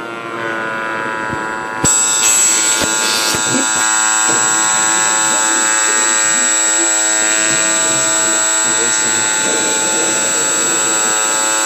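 MPCNC router cutting 2 mm craft foam, its Emax 2822 brushless motor spindle running at about 6000 rpm: a steady electric motor whine made of several tones. The tones climb slightly in pitch in the first second, and about two seconds in the sound gets suddenly louder, with a high steady whistle on top.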